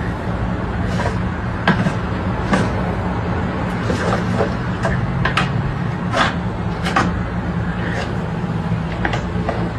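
A steady low hum with irregular sharp clicks and knocks scattered over it, about a dozen across the stretch.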